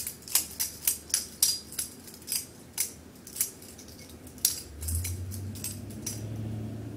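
Butterfly knife being flipped and passed between hands: its metal handles click against each other and the blade, about two or three sharp clicks a second, thinning out near the end. A low steady hum comes in about five seconds in.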